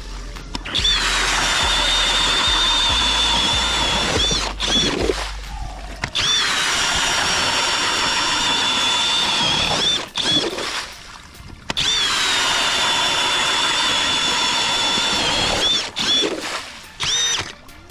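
Hercules 20V brushless cordless drill turning an ice auger through lake ice. The motor whine runs steady under load in three long runs of about four seconds each, spinning up at the start of each and winding down at the end, with a brief blip near the end.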